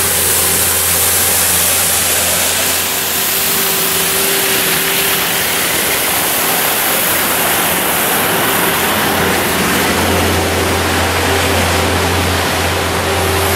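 Elgin Broom Badger street sweeper at work: a steady, loud rushing of its sweeping gear over the truck's engine hum. The hum drops back in the middle and comes up stronger again near the end.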